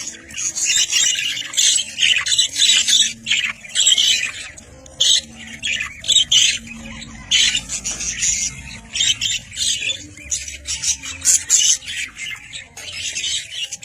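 Several budgerigars chattering and squawking: a dense run of short, high calls with brief pauses between bursts.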